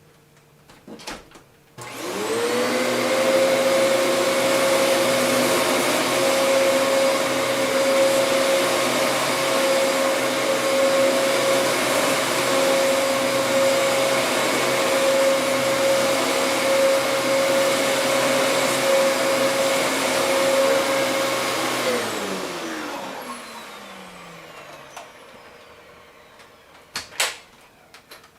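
Vacuum cleaner switched on with a click, its motor whining up to speed and running steadily with a strong high hum. About twenty-two seconds in it is switched off and the motor winds down, its pitch falling away. A few clicks come near the end, and another vacuum starts up at the very end.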